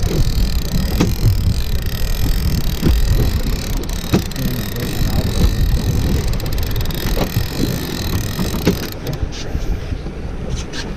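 Steady low rumble of a boat motor with wind buffeting the microphone. Scattered knocks and clicks come from a heavy trolling rod and reel being handled.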